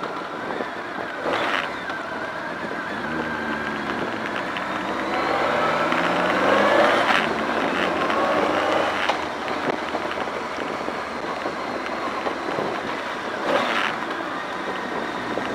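BMW K1200R Sport's inline-four engine heard from on board, its pitch rising as the rider accelerates, dropping as he eases off, and climbing again near the end, over a steady rush of wind and wet-road noise. A few short sharp knocks along the way.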